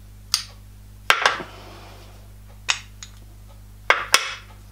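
Metal blocks and aluminium pieces being lifted and set down on a hot plate, knocking and clinking against each other: about seven sharp clanks, a quick cluster about a second in and a pair near the end.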